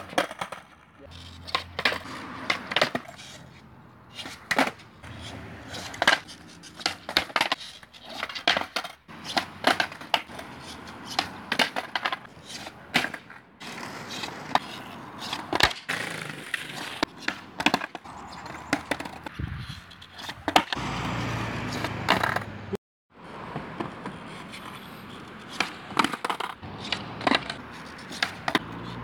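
Skateboard tail pops, board clacks and landings on concrete from repeated fakie kickflip attempts, a sharp knock every second or so, with wheels rolling on the concrete between them.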